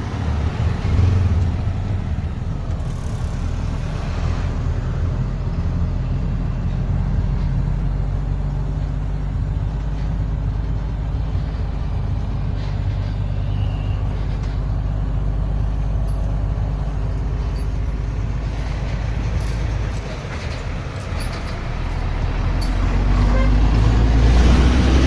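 Engine and road noise of a moving vehicle heard from inside its cabin, a steady low drone that dips briefly about twenty seconds in and then grows louder toward the end.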